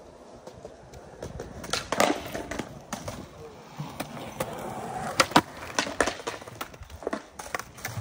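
Skateboard wheels rolling over concrete, with sharp clacks of the board hitting the ground: a cluster about two seconds in and a run of them from about five seconds on.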